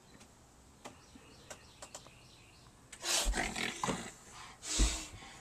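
A child roaring and growling like a monster: two loud, rough roars, the first about three seconds in and the second near the end, after a few light clicks.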